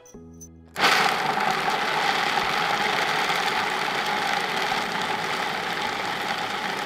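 Electric food processor running at full speed, grinding almonds, walnuts and cashews into a meal. It starts abruptly just under a second in and then runs steadily.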